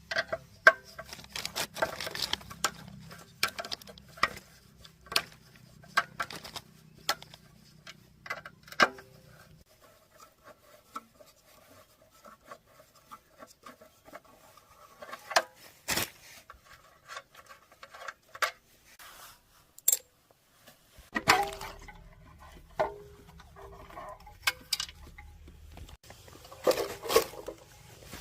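Metal tools and engine parts clinking and knocking as they are handled and set down, a series of separate sharp clicks and taps. A low steady hum runs underneath for the first ten seconds or so and comes back about three-quarters of the way through.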